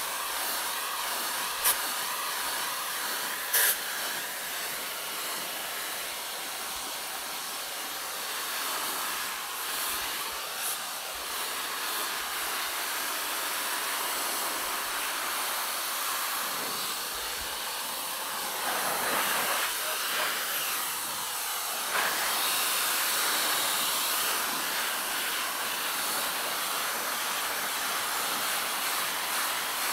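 Compact handheld pet dryer blowing a steady hiss of air over a wet Labrador's coat, the sound shifting and growing a little louder about two-thirds of the way through as the nozzle moves. Two brief sharp clicks in the first few seconds.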